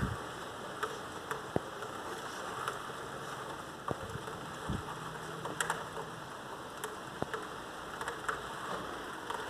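Steady rain hiss, with scattered sharp ticks of drops striking nearby surfaces.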